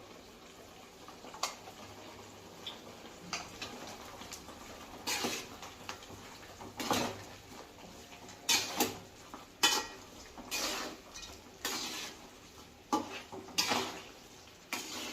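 A spoon scraping and knocking against a cooking pan in irregular strokes while ground masala powder is stirred into chicken, the strokes getting louder and more frequent about five seconds in.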